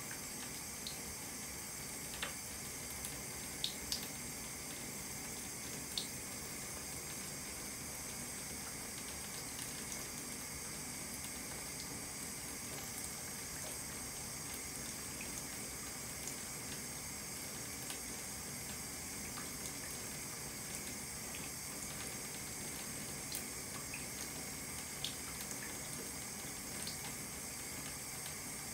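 Thin stream of water running from a bathtub spout into an empty tub: a steady, even splashing hiss, broken by a few brief sharp ticks.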